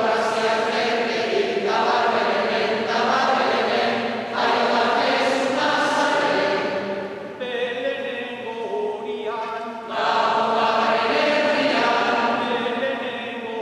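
Mixed choir of men and women singing a Basque Christmas carol (marijesiak) together, in phrases of a few seconds with short breaks between them.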